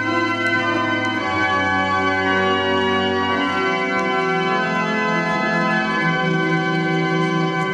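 Church organ playing the recessional in sustained full chords that change every second or so, over a low held bass note that stops about halfway through.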